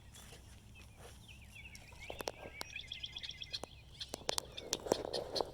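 Songbirds chirping and trilling rapidly, mixed with scattered sharp clicks and a short rustle near the end.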